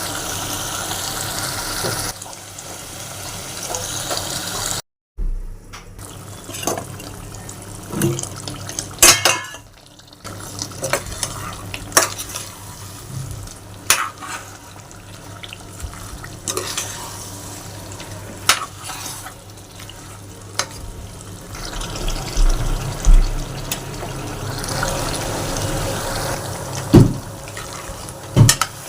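Cooking sounds: a spoon clinking and scraping against a metal pot over a steady hiss of frying or running water, with a brief silent break about five seconds in.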